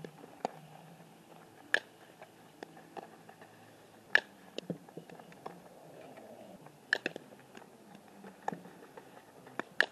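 Softball fielding drill: sharp cracks of the ball coming off the bat and smacking into a leather glove, loud ones every two to three seconds, with fainter clicks and scuffs between.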